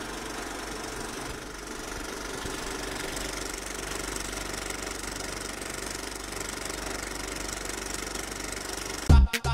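A steady mechanical hum with a faint rattle, like a small motor running. Loud music with a strong beat starts abruptly near the end.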